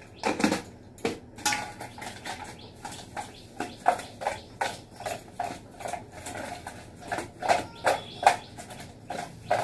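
A steel kitchen vessel clinking and knocking over and over, roughly two knocks a second, as fish pieces are mixed with salt by hand in it.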